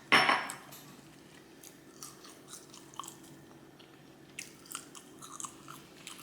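Close-miked eating: a loud bite right at the start, then quieter crunching and chewing with small wet mouth clicks.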